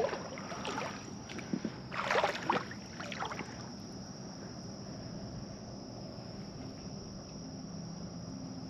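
A long-handled dip net plunged and swept through shallow salt-pond water: two short bursts of splashing in the first few seconds, then only a steady high insect chirring.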